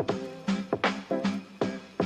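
Background music: a steady rhythm of short, sharply struck notes, about three a second.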